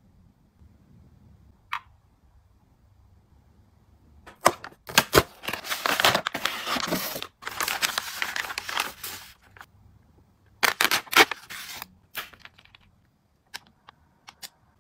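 Plastic sheet-mask sachets of a collagen freeze-dried essence mask crinkling and rustling as they are handled and opened, in a long burst starting about four and a half seconds in and a shorter one around eleven seconds, followed by a couple of light clicks near the end.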